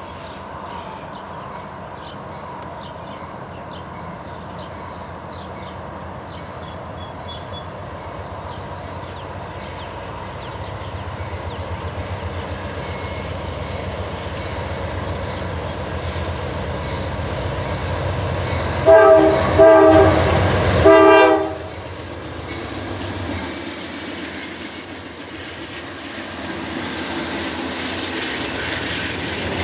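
Norfolk Southern freight train led by SD70ACe 1111 and an SD60M approaching, the diesel locomotives' rumble growing steadily louder. About two-thirds of the way through, the lead locomotive's air horn sounds three blasts of a chord, the middle one longest. Then the locomotives pass and double-stack well cars roll by with a steady clatter.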